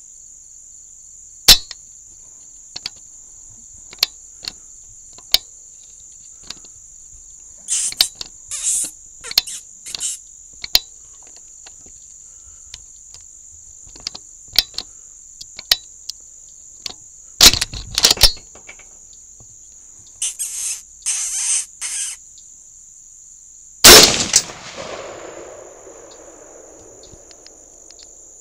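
A steady, high-pitched chorus of night insects throughout, with scattered sharp clicks and several short bursts of hissing noise. Near the end comes one loud burst whose lower tail fades away over a few seconds.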